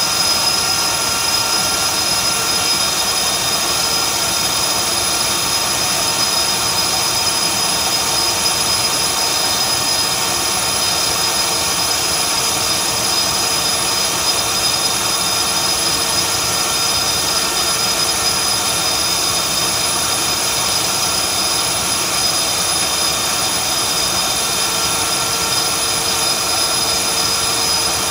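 Dynamax 127 mm electric ducted fan with a TP-5850 700kv motor running steadily at full power, about 27,500 rpm and 5.3 kW. It makes a loud, unchanging rush of air with a steady high whine on top.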